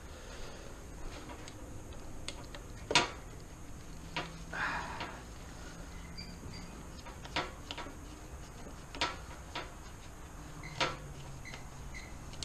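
Scattered clicks and light knocks of a screwdriver prying at a plastic electrical connector in an engine bay, with a short scraping rustle; the sharpest click comes about three seconds in.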